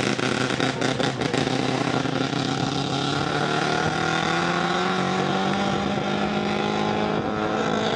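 Volkswagen hatchback rally car's engine pulling away on a gravel stage, its note rising slowly and steadily, with crackling clicks in the first second or so.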